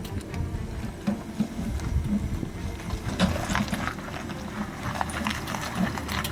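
Jeep Wrangler Rubicon 4xe driving off-road: irregular knocks and crunches from the tyres and running gear over rough ground, over a low rumble, growing busier about halfway through.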